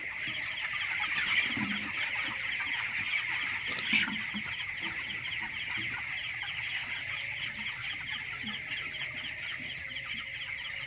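A flock of chickens in a poultry house calling: a dense, steady chorus of short high peeps with occasional lower clucks. A brief knock about four seconds in.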